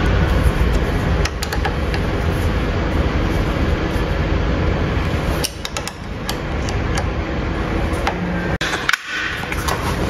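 Steady low rumble and hiss of background machinery noise, with scattered light metallic clicks from hand tools working screws on a circuit breaker's frame. The noise drops away briefly twice, about halfway through and shortly before the end.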